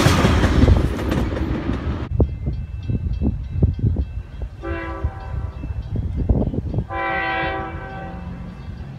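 Rumble of a freight train's cars rolling past cuts off about two seconds in. Then, over a low rumble, a distant locomotive's air horn sounds twice, first a short blast and then a longer one, several notes at once.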